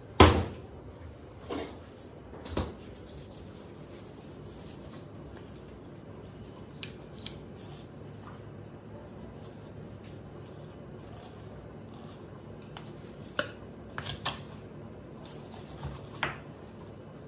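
Whole fish slapped down onto a plastic cutting board, a loud wet slap followed by two smaller thuds. Then a steady low hum with scattered crisp clicks and crunches as a knife cuts open a large fish.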